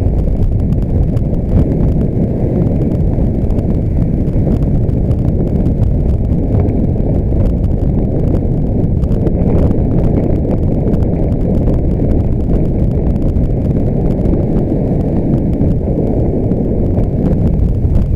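Wind buffeting the microphone of a helmet-mounted action camera on a moving road bike: a loud, steady low rumble.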